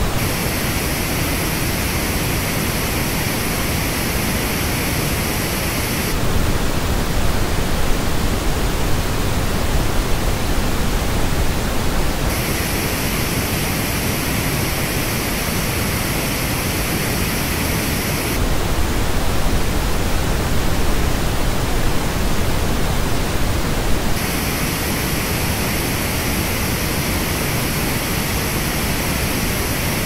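Pink noise test signal switching about every six seconds between the plain reference noise and the same noise reproduced through Grado SR225X headphones. The headphone passages, three of them, sound brighter and hissier, with peaks in the upper mids and treble and a thinner bass.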